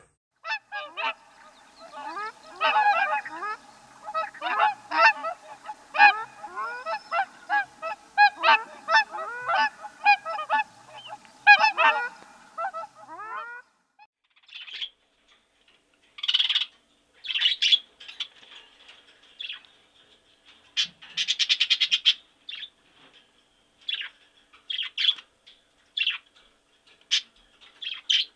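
Domestic geese honking, many rapid calls overlapping, for about the first thirteen seconds. After a short pause, a series of short shrill bird calls follows, a second or two apart with a few quick runs.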